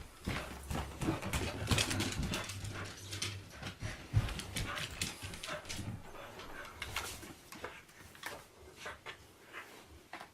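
A beagle tussling with a ragged skeleton figure: irregular scuffling and rustling along with the dog's own small noises, quieter near the end.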